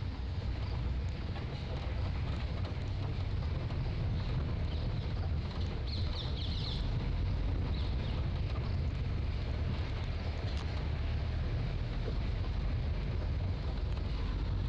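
Vehicle driving along a rough cobbled stone track: a steady low engine and road rumble, with wind buffeting the microphone.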